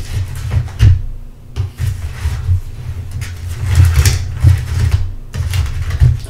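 Crispy breaded fried fish being pulled apart by hand on a metal tray: crackling of the coating, with dull knocks and handling thumps from the table.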